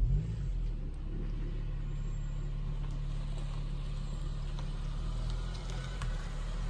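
2008 Honda Civic Si's four-cylinder engine running low and steady as the car rolls slowly up at low speed.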